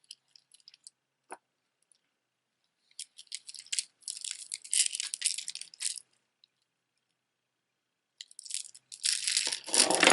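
Costume jewelry being handled: plastic rhinestones, beads and metal parts clicking and rattling together. A few light clicks come first, then two longer stretches of dense rattling, the second one near the end.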